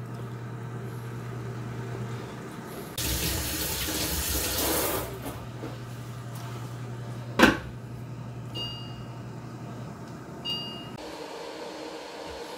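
Induction cooktop humming steadily, then two short beeps a couple of seconds apart as it is switched off, and the hum stops. Earlier a loud hiss lasts about two seconds, and a single sharp knock comes about halfway through.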